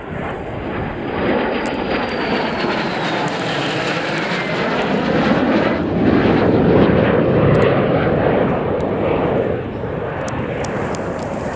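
A pair of de Havilland Vampire jets flying past in formation, their Goblin turbojets giving a rushing jet noise that swells to its loudest past the middle and eases near the end. A high whine glides down in pitch a couple of seconds in as the jets go by.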